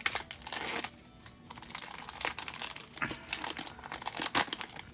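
Foil booster-pack wrapper of a Pokémon trading card pack being torn open and crinkled by hand, a run of sharp crackles and rustles.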